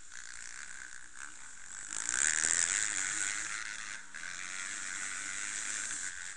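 Enduro dirt bike's engine running on the move, heard from a camera mounted on the bike, with a steady rushing noise over it. It grows loudest about two seconds in and eases off a little after three.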